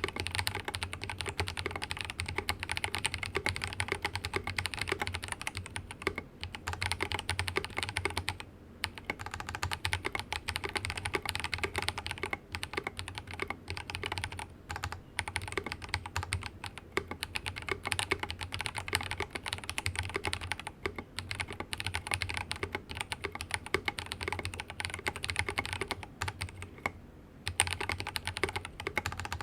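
Continuous fast typing on a Rama Works Kara mechanical keyboard with lightly lubed Drop x Invyr Holy Panda tactile switches, a dense stream of key clacks. There are short pauses about eight seconds in and again near the end.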